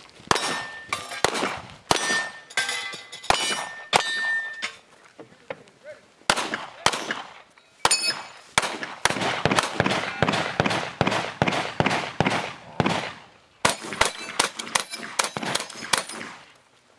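Gunshots in quick strings, with steel targets ringing on hits. A first string of shots with clear rings runs to about four and a half seconds in. After a short pause comes a longer, faster string of shots, then a last burst near the end.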